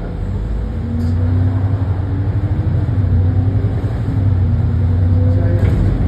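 Alexander Dennis Enviro400 double-decker bus's diesel engine running as the bus drives, heard from inside the passenger saloon: a deep hum with a whining tone that rises and dips, getting louder about a second in.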